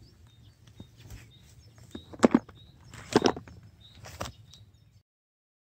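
Handling noises of stones and a small plastic box: a few sharp knocks and scrapes, the loudest two about two and three seconds in and a softer one about four seconds in. Birds chirp faintly behind, and all sound cuts off about five seconds in.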